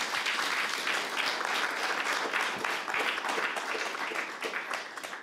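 Audience applauding: dense, steady clapping from a roomful of people, thinning out at the very end.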